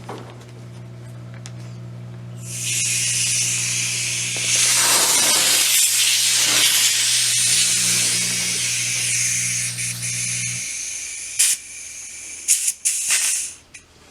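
Pressurised CO2 hissing out of an airsoft gas blowback magazine. The hiss starts about two and a half seconds in, grows louder around five seconds and runs steadily, then breaks into a few short spurts and cuts off near the end. A steady low hum underneath stops suddenly about ten seconds in.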